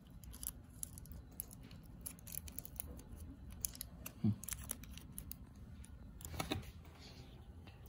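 Thin aluminium foil discs handled and pulled apart between the fingers: faint, irregular crinkling and small ticks, with a brief louder rustle about six and a half seconds in.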